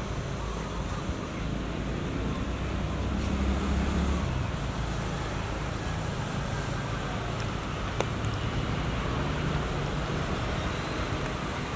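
Steady low background rumble, swelling slightly about three seconds in, with a single sharp click about eight seconds in.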